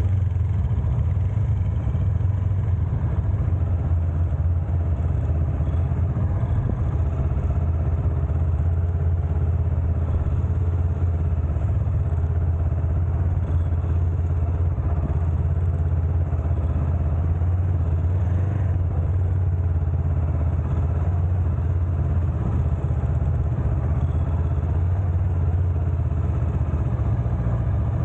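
Honda CL500's parallel-twin engine running at low, fairly steady revs while the motorcycle is ridden slowly, heard close from a camera mounted on the bike.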